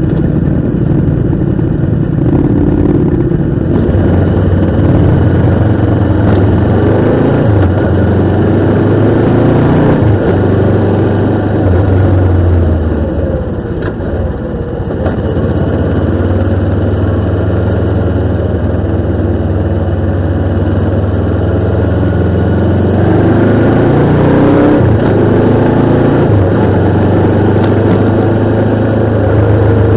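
Motorcycle engine running at speed, its pitch rising and falling with the throttle. It eases off briefly about halfway through, then picks up again.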